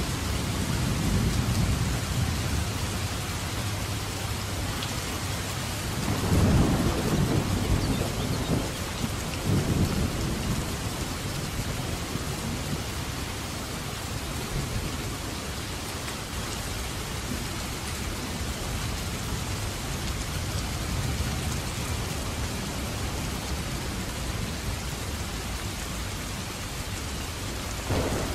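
Heavy downpour with a steady hiss of rain and rolling thunder. A low rumble comes in the first few seconds. A louder clap about six seconds in rolls on for several seconds, then the rain carries on alone.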